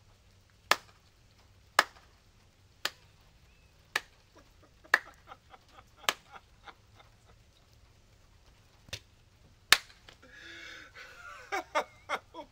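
A slow, even series of sharp slaps, about one a second, with fainter clicks between them. Near the end comes a short breathy noise, then a quick run of slaps.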